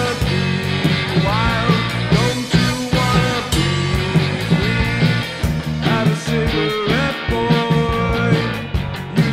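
Rock band playing a song: drum kit with cymbal hits keeping a steady beat, electric guitar, and a male voice singing.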